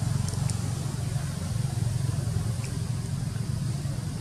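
A steady low rumble, with a few faint high clicks.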